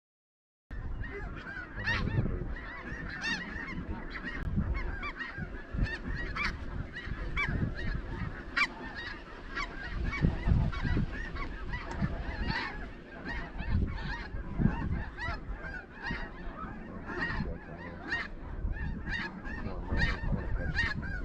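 Snow geese calling: a dense chorus of many short, overlapping high-pitched yelps and honks that keeps going without a break, over a low rumble. It starts after a split second of silence.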